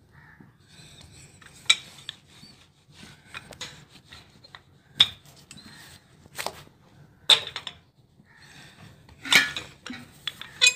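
Rolling pin rolling out stuffed paratha dough on a floured tabletop: a rubbing, scraping sound broken by about five sharp knocks of the pin against the surface.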